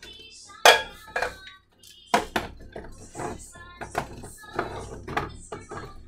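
Metal tea tins knocking and clinking against each other and the cupboard shelf as they are moved about. There are several sharp knocks in a row, the loudest less than a second in.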